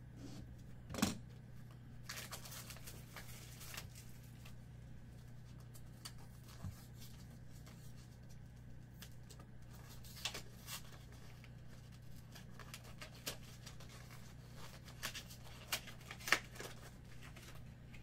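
Hands handling a trading-card box and card holder: cardboard sliding and rustling, with a sharper tap about a second in and a few light clicks later, over a faint steady low hum.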